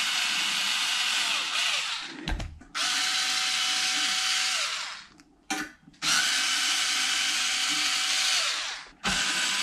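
Small cordless screwdriver running in three spells of two to three seconds each, driving screws into the metal bed-frame rails, with short pauses between and a knock in the first pause; each spell winds down as it stops.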